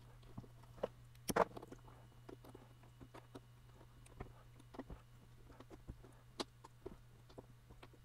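Faint scattered clicks and small knocks from a steering wheel with a metal spoke plate being handled and seated onto its hub, with a louder knock about a second and a half in, over a steady low hum.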